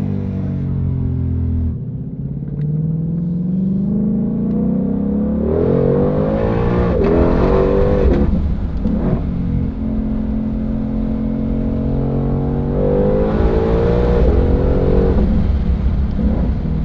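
The 2020 Ford Shelby GT500's supercharged 5.2-litre V8 pulls under throttle. Its pitch rises and falls several times as the dual-clutch gearbox changes gear, with a sudden drop about two seconds in.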